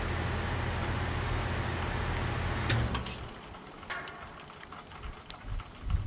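Goodman 2.5-ton heat pump outdoor unit running in heat mode with a steady low hum, then shutting down about three seconds in: a click, and the hum dies away. After that only faint scattered ticks remain.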